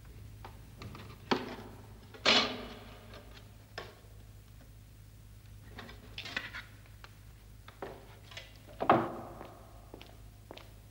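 Metal licence plates knocking and clinking against a car's front as they are taken off and fitted by hand. There are several sharp knocks, the loudest two with a short ringing tail about two and nine seconds in, over a steady low hum.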